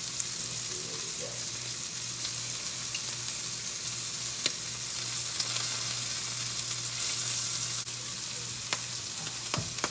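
Seasoned shrimp sizzling steadily in hot oil in a frying pan, with a few sharp pops of spattering oil. The sizzle shows that the pan is hot enough.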